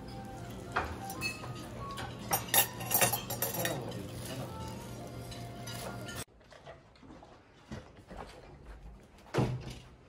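Plates and cutlery clinking over the steady low hum of a busy breakfast dining room. About six seconds in it cuts off to a much quieter stretch with a few light knocks, one louder knock coming near the end.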